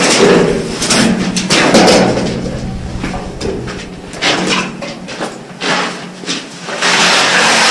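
Construction-work knocks and bangs, several sharp impacts coming irregularly, with a low steady hum underneath.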